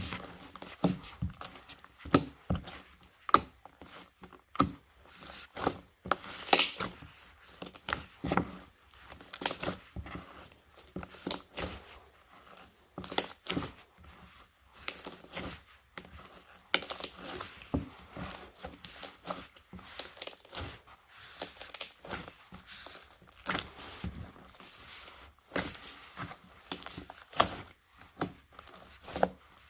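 Slime being squeezed, stretched and poked by hand, giving irregular sticky clicks, pops and crackles.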